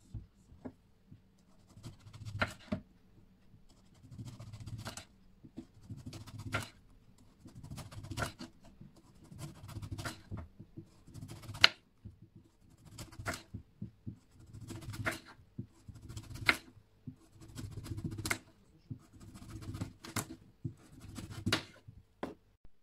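Kitchen knife slicing a large zucchini into thick rounds on a wooden cutting board. About a dozen strokes, roughly one every second and a half to two seconds. Each is a short scraping cut through the flesh that ends in a sharp tap as the blade meets the board.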